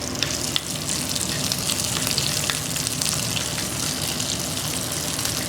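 Tadka frying in hot oil: mustard seeds, curry leaves and a green chilli sizzling steadily, with scattered sharp crackles.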